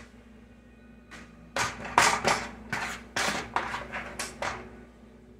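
A kitchen utensil scraping and scooping rice-and-meat filling against a dish as bell peppers are stuffed: a quick run of short scrapes from about a second and a half in until about four and a half seconds.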